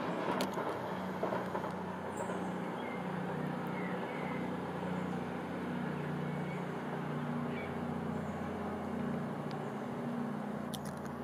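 Class 220/221 Voyager diesel multiple unit's underfloor diesel engines running, a steady drone with hum notes that slowly shift in pitch.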